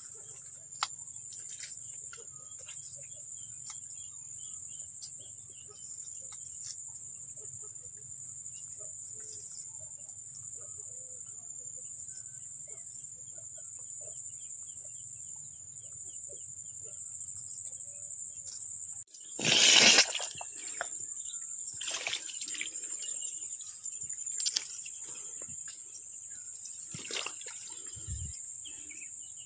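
Steady high-pitched insect drone, such as crickets or cicadas, in rural outdoor ambience. A loud brief rustle or knock comes about twenty seconds in, followed by a few softer knocks.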